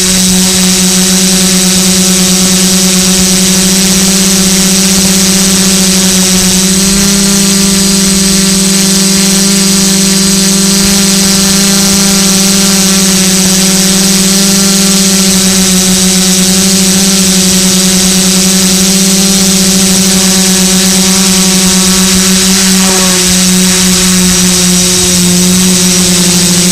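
Multicopter's electric motors and propellers running steadily, a loud buzzing hum with a high whine, recorded on board the craft in flight. The pitch steps up slightly about seven seconds in and shifts again near the end as the throttle changes.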